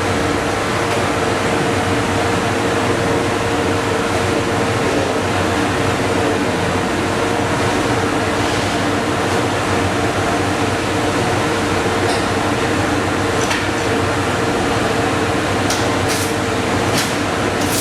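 Stick (MMA) welding arc burning steadily from the LG-40Y welder, a continuous crackling hiss with a steady hum underneath, and a few sharp clicks near the end.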